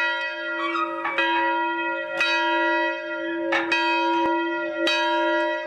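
A single large church bell in an open steel tower, swung by its rope so the clapper strikes four times, about one stroke every second and a quarter. Each stroke rings on under the next.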